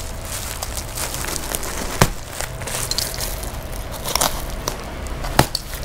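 Woven plastic bale sack crackling and rustling as its stitched seam is cut and pulled open with a cutter, with two sharp clicks, about two seconds in and near the end.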